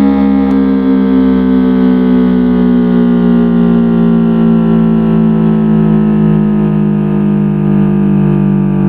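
Early Federal Signal 500 mechanical siren winding down, its tone falling slowly and steadily in pitch.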